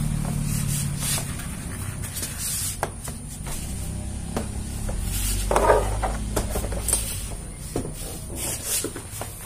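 Foam yoga-mat liner rubbing and scraping against a car door as it is pressed into place, with scattered light clicks and knocks over a steady low hum.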